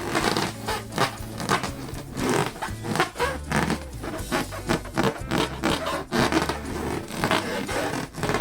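Hands rubbing and squeezing latex balloons: rapid, irregular rubbing strokes several times a second, over background music with a low bass line.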